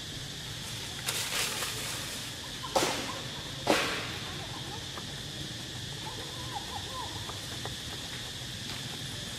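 Steady high-pitched insect drone, with a brief rustle about a second in and two sharp snaps, about three and four seconds in, that are the loudest sounds.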